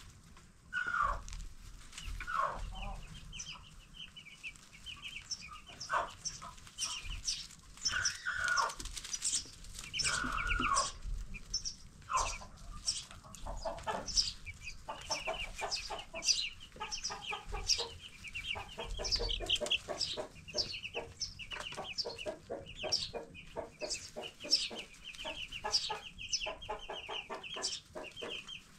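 A brood of 10-day-old broiler chicks peeping without pause: many short, high chirps overlapping, with a few louder peeps that slide downward in the first half, and denser, faster chirping from about halfway through.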